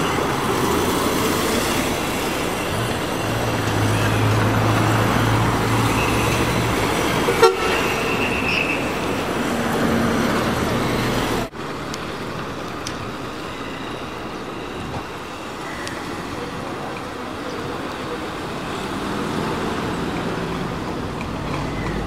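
City street traffic noise: vehicle engines and tyres passing, with a horn toot. There is a sharp click about seven seconds in, and halfway through the noise drops suddenly to a quieter stretch of traffic.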